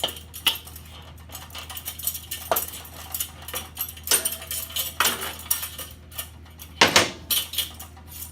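Small metal parts and hardware clinking and clattering as they are handled, in a string of irregular sharp taps, the loudest about seven seconds in.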